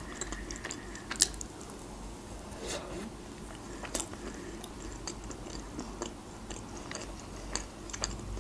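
Close-up mouth sounds of a person chewing a soft layered chocolate cream cake: small wet clicks and smacks, with one sharp click about a second in.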